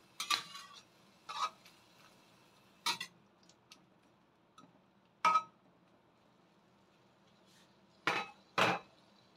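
Metal spatula clanking and scraping against a stainless-steel wok while sliced bitter gourd is stirred: about six separate sharp clanks, the last two close together near the end.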